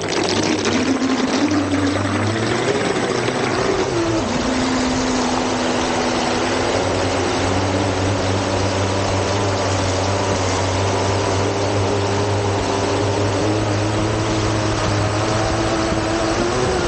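Twin Leopard 4074 2200kv brushless motors of an electric RC catamaran running at speed. Their whine shifts in pitch with the throttle over a constant hiss of spray and rushing water, heard from on board the boat.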